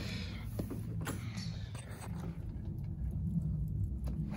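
A doorknob is turned and its latch clicks, and the door swishes open in the first second or so, over a low steady rumble.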